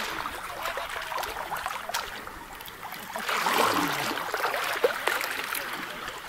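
Water trickling and splashing around a wooden punt as it is poled along a canal, a steady busy wash of small splashes and drips, louder in the second half.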